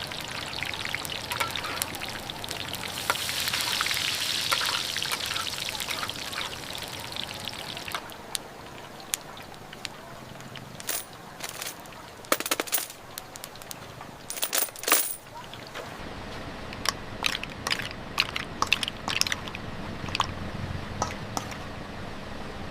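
Mussel pancake (hoi tod) frying in hot oil, a loud crackling sizzle for the first several seconds, then quieter sizzling with sharp clicks and clinks from about eight seconds in.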